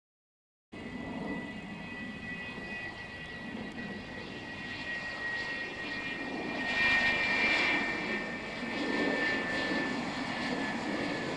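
F-4 Phantom's twin jet engines on the runway as the jet rolls out after landing with its drag chute out: a steady rush with a high whine that slowly drops in pitch. The sound starts just under a second in, after a moment of silence, and swells about seven seconds in.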